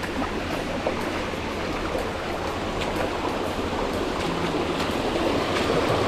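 Mountain stream running over rocks, a steady rushing of water.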